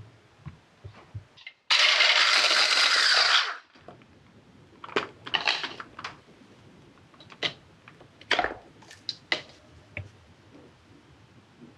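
An electric whisk running briefly in a glass jug of heavy cream: it starts abruptly and fades out after about two seconds. It is followed by a string of light clinks and knocks as a silicone spatula and the glass jug touch the ceramic bowl.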